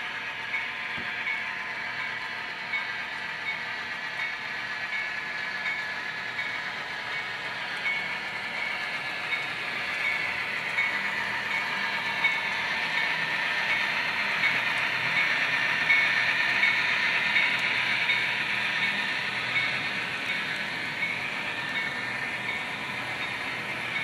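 HO scale model train running on the layout track: a steady whine with a faint, regular ticking, growing louder past the middle as it comes nearer, then easing off.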